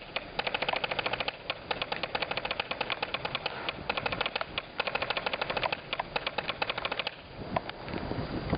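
Drumsticks playing a fast, even rudimental drum-corps exercise, stroke after stroke; the playing stops about seven seconds in, leaving wind noise.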